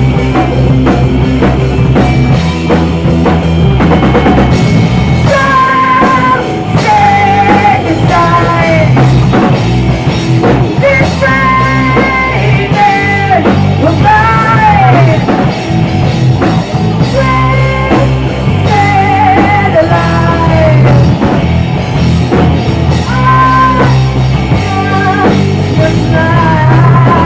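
A rock band playing live: drum kit, guitar and a lead singer's held, wavering sung phrases over a heavy low end.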